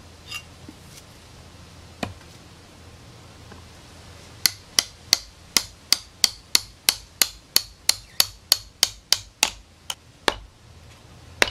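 Knife blade chopped down into the end of a bamboo pole to split it for skewers: a couple of single knocks, then a quick even run of sharp knocks, about three a second, for some six seconds.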